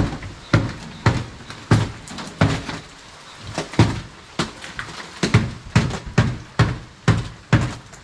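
Repeated hard knocks and thuds on the ceiling boards, about a dozen blows unevenly spaced roughly half a second apart, as the boards are pounded loose.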